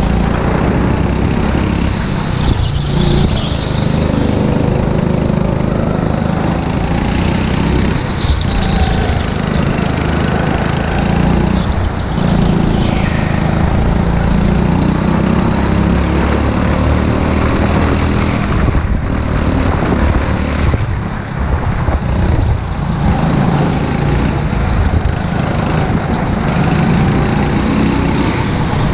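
Go-kart's small engine running hard under load, recorded onboard the kart, its note easing briefly every few seconds as the throttle lifts for corners and then picking up again.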